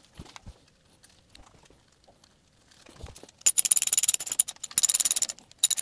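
Hand ratchet clicking in quick runs as the bolt and nuts holding a new water pump are run down: faint taps for the first few seconds, then three short bursts of rapid clicks starting about halfway through.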